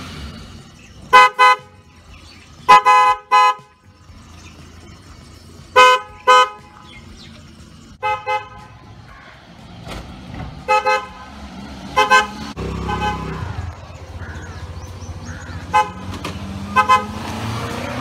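Newly fitted aftermarket Bosch 12 V car horn being tested with short multi-tone toots, mostly in quick pairs, repeated every couple of seconds.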